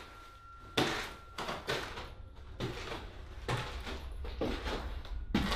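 A series of irregular knocks and thuds, roughly one every half to one second, the loudest about a second in.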